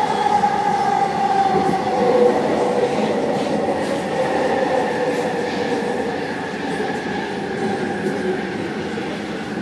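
Vancouver SkyTrain car running on its guideway: the steady whine of its linear induction motor over wheel and rolling noise. The whine drops slightly in pitch and fades as the train slows into a station.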